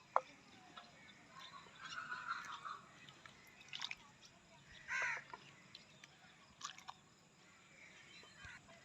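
Faint ambience with a single short bird call about five seconds in, and a few scattered light clicks.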